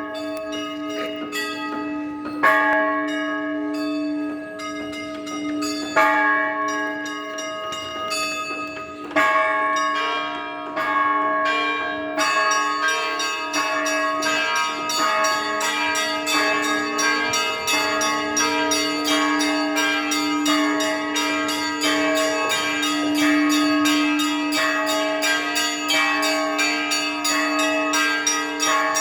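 Orthodox cathedral bells ringing a peal. At first the big bell is struck about every three seconds along with a few smaller bells. About twelve seconds in, the small high bells break into fast, continuous chiming over the big bell's hum.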